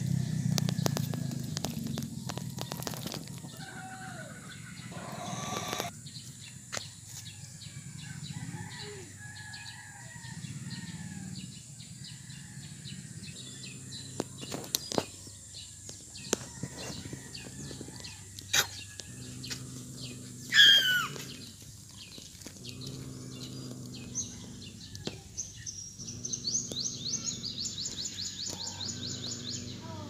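Birds chirping and calling outdoors over a low hum, with scattered clicks and rustles in dry leaves. A loud falling call sounds about 21 seconds in, and a fast run of high chirps comes near the end.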